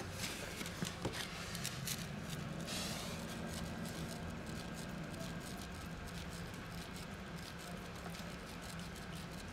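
A small kitten hisses once, about two seconds in, while a hand strokes it. Soft rustles and clicks of the hand against its fur come before and after, over a low steady hum.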